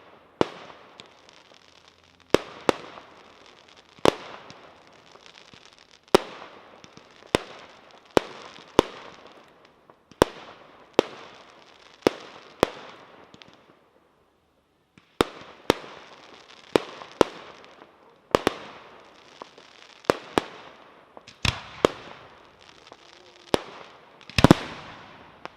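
Fireworks display: a run of loud, sharp bangs, about one a second, each trailing off in a fading hiss of crackle and echo. There is a brief lull about halfway through, and the loudest bang comes near the end.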